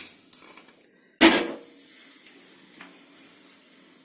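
A metal cooking pan is set down with a sharp clank on the stove, followed by a steady low hiss from the stove.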